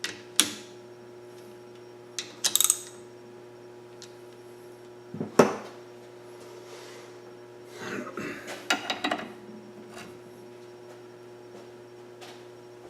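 Scattered clinks and knocks of tools and metal parts being handled on a workbench, the loudest knock about five seconds in and a quick cluster of clinks around eight to nine seconds, over a steady low hum.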